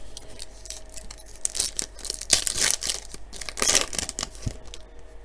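A trading card pack's wrapper being torn open and crinkled by hand, in a string of crackly tearing bursts from about a second and a half in to about four seconds in.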